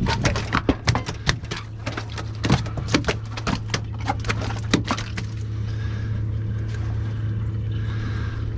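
A boat's motor hums steadily and low throughout. Over it, a string of irregular sharp clicks and knocks comes during the first five seconds and then thins out.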